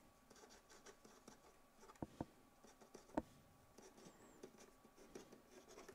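Pen writing on paper, faint scratching strokes with a few light ticks of the pen tip about two and three seconds in.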